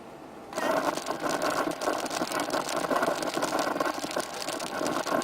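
Heavy rain pelting down on a hard surface as a dense, loud crackling patter, starting abruptly about half a second in.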